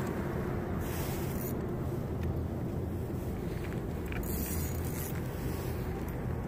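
Steady low rumble, with a faint low hum under it.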